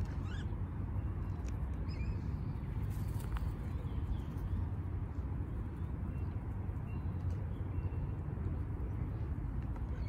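Steady low rumbling background noise, with a few faint short bird chirps scattered through it.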